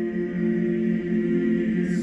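Two male voices singing a choral piece in harmony, holding long steady notes, with a short hiss as the next phrase begins near the end.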